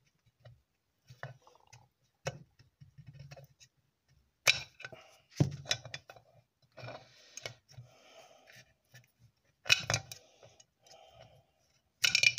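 Small metal gears clicking and clinking as they are worked off their keyed shaft from a lathe's Norton quick-change gearbox, with several sharper knocks of metal on metal scattered through and light rattling in between.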